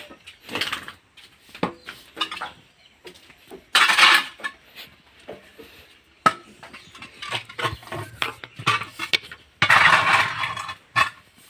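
A metal hoe scraping and knocking across a pigsty floor as dung is scraped up, with two long scrapes, one about four seconds in and one near the end, and irregular clinks and knocks between them.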